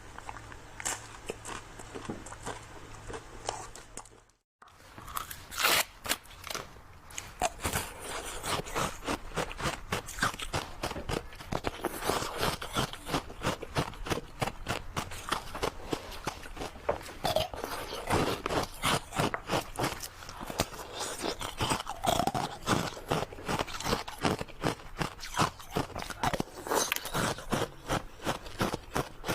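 Close-up crunching and chewing of ice cream: crisp bites and crunches in quick, irregular succession, broken by a brief silence about four seconds in.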